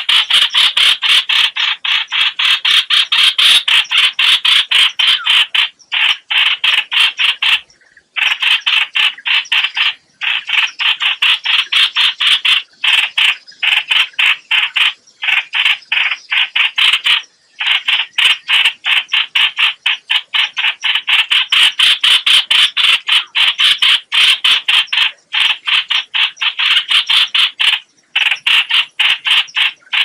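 Recorded distress call of the chao chảo bulbul, played as a trapping lure: a fast run of short calls, many a second, in long runs broken by brief pauses.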